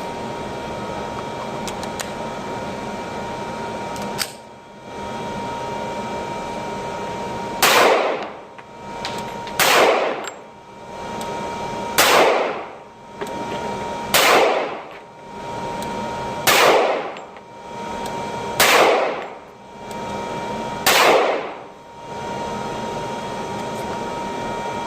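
Seven handgun shots fired at a slow, even pace, about one every two seconds, each a sharp crack with a short reverberant tail. A steady hiss of range ventilation runs underneath.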